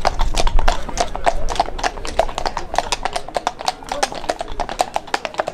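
Hooves of several walking horses clip-clopping on brick paving, a dense run of overlapping sharp clicks that grows fainter toward the end as the horses move off.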